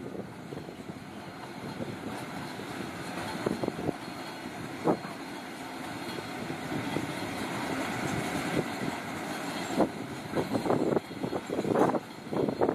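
Narrow-gauge intermodal freight wagons loaded with cement tank containers rolling past: a steady rumble of wheels on rail with occasional sharp knocks, which come more often near the end.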